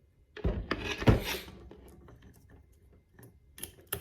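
Handling noise of a cable gun lock's steel cable being worked through an AR-15's chamber and magazine well: a scraping rattle with two heavy knocks about half a second apart near the start, then a few light metallic clicks near the end.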